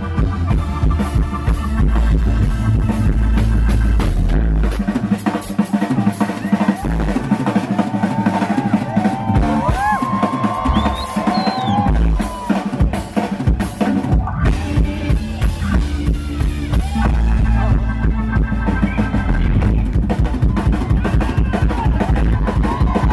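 Live band jamming: drums, bass guitar, electric guitar and sousaphone playing a groove together. The deep bass thins out from about five seconds in and comes back in the last third.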